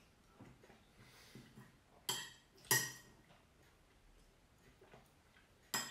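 Metal spoon clinking against a ceramic soup bowl: two sharp clinks in quick succession about two seconds in and another near the end, with quiet between.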